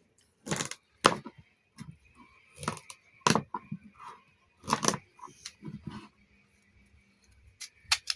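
Kitchen knife working a cucumber on a chopping board: about nine sharp, irregularly spaced knocks of the blade against the board.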